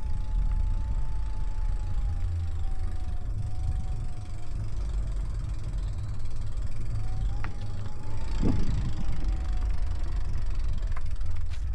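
Wind buffeting the microphone and tyre rumble from a moving electric bike, with the motor's thin whine underneath, its pitch slowly sagging and then rising again with speed. A single knock comes about two-thirds of the way through.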